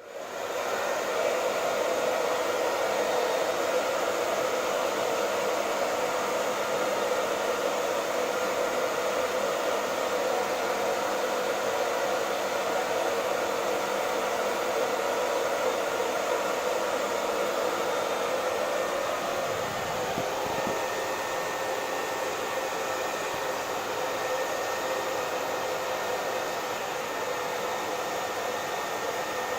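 Hair dryer running steadily, a continuous blowing rush of air and motor. About twenty seconds in its sound shifts slightly, turning a little quieter.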